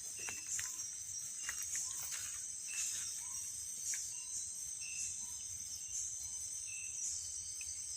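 Water hose making short, irregular high-pitched squeaking chirps, which are the strange night-time noise traced to it. A steady high chorus of crickets runs underneath.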